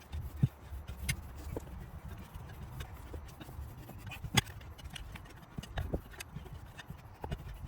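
Irregular knocks, clicks and clunks from a riding-mower tire and rim being handled and worked, with a sharper knock about half a second in and another about four seconds in.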